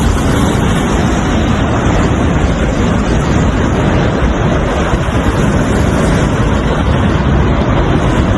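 A loud, steady rushing noise with wind buffeting the microphone.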